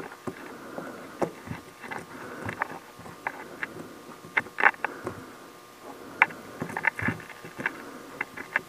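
Metal multimeter probe tips tapping and scraping over a chunk of ore rock: scattered small clicks and scratches over a faint steady hum. No continuity beep sounds: the probed spot of ore does not conduct.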